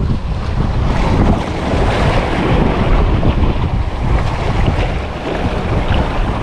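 Wind buffeting the microphone over the rush of sea waves around a small fishing boat, a loud, steady, rumbling noise.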